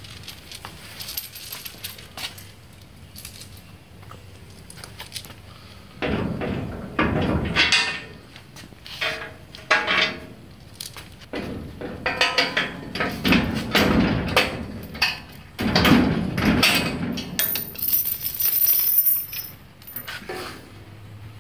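Metal clanking and clinking as a heavy rear impact bumper is fitted up to the frame and loose bolts and washers are handled. The sounds are irregular knocks and rattles, quieter at first and coming in busier clusters from about six seconds in.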